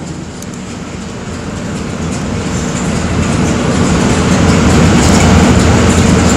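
A steady low engine rumble with a hum, growing steadily louder.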